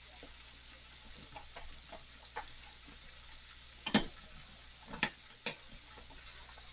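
Sharp metal clicks and knocks from a stainless-steel pressure cooker's lid and handle being worked open, the loudest about four seconds in and two more about a second later, after a few lighter clicks. A faint steady hiss runs underneath.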